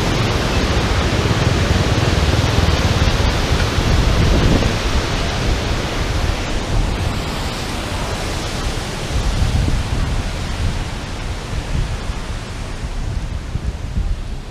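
Steady rushing roar of the Silver Waterfall, with a deep rumble underneath; loudest for the first few seconds, then gradually easing.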